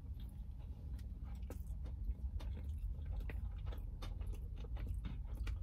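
Chewing of a mouthful of shrimp tempura sushi roll topped with crunchy tempura flakes: soft wet chewing with many small crunchy clicks, over a low steady hum.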